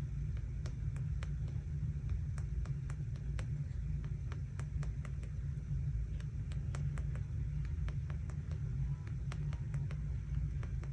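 Many light, irregular taps of a pen tip dotting on paper, a few a second, over a steady low rumble.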